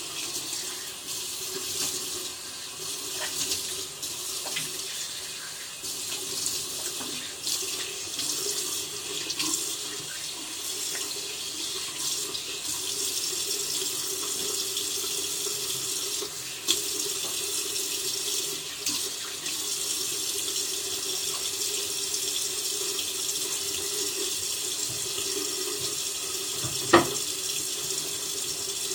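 Tap water running into a bathroom sink while a face is rinsed: uneven splashing for the first third, then a steadier flow. A single sharp click near the end.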